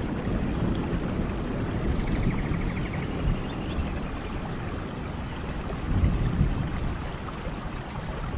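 Steady rain falling, with short high chirping calls from small animals a few times, about four seconds in and again near the end.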